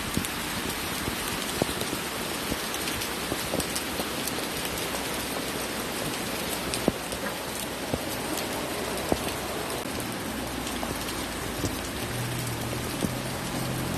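Heavy rain pouring onto a flooded street: a steady hiss with many scattered drop clicks. Near the end a car engine's low hum comes in as a car drives through the floodwater.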